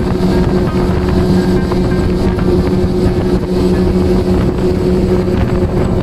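Mercury FourStroke outboard motor running at high speed, pushing the boat across a river. Its pitch holds steady over the rush of water off the hull.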